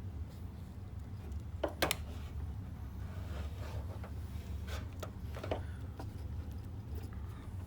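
Hands handling a car's wiring harness and tools, giving a few short rubs and clicks, the loudest a double click about two seconds in, over a steady low hum.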